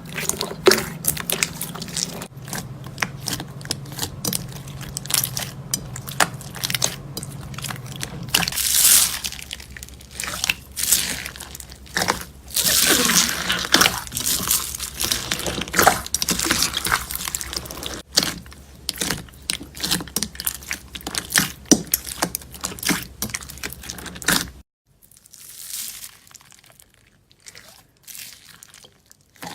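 Slime being squeezed, pressed and stretched by hand, close up: a steady run of crackling, popping and wet squishing sounds. A low hum underneath stops abruptly about 25 seconds in, and the slime sounds go on more quietly after it.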